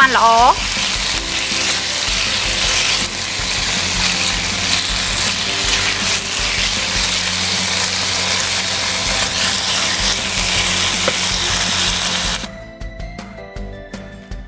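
Thin slices of raw beef sizzling in hot oil in a nonstick pan as they are stir-fried with garlic and chilli. The sizzle cuts off suddenly about twelve seconds in.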